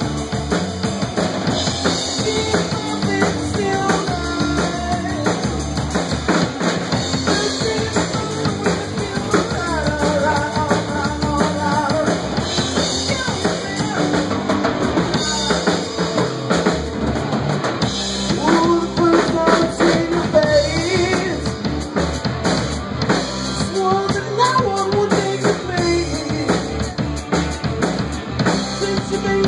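Rock band playing live, with a drum kit keeping a steady beat under pitched instrument lines.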